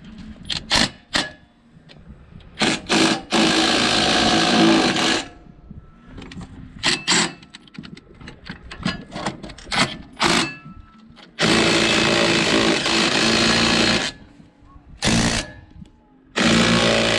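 Cordless AEG impact driver running nylock nuts down onto leaf-spring U-bolts, in several bursts of about one to two and a half seconds, with short spurts and metal clicks between.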